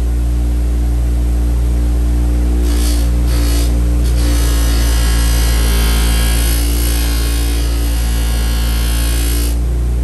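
Electric bench buffer running steadily with a hum, its stitched cloth buffing wheel spinning. A knife blade is pressed against the wheel briefly about three seconds in and again from about four seconds to near the end, adding a hiss of polishing.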